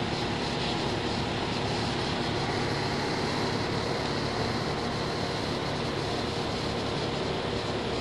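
A 14 SEER Guardian (Johnson Controls) microchannel air-conditioning condenser is running, and its outdoor fan blows a steady whoosh of air with a faint hum underneath. The unit is brand new and moving air well.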